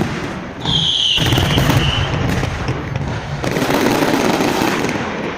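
Fireworks display: a sharp bang, then a high whistle that slides slightly down in pitch over the next second and a half. A dense, rapid barrage of bangs and crackling runs for about four seconds and fades near the end.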